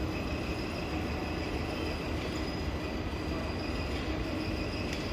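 Steady ambience of a large railway station hall with electric trains standing at the platforms: an even hum with a faint high whine.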